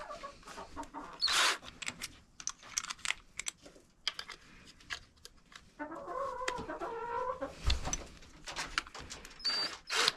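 Chickens clucking, with scattered clicks and knocks throughout.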